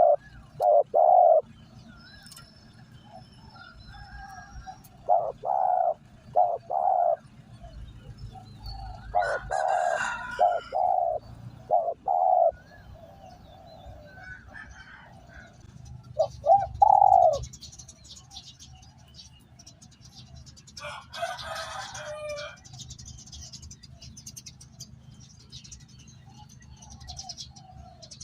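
Spotted dove cooing in short repeated phrases, in four bouts spread through the stretch. There is a brief rustling burst about three quarters of the way through, and small birds chirp faintly in the background.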